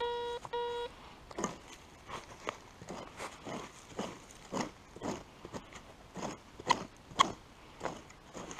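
Metal detector giving two short, low-pitched beeps, then a hand tool digging into forest soil and dead leaves, crunching about twice a second.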